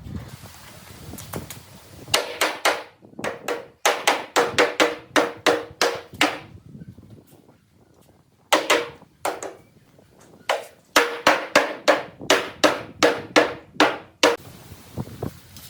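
Hammering in a woodshop: runs of sharp blows, about three a second, each with a short ring. There is a quiet pause of about two seconds near the middle.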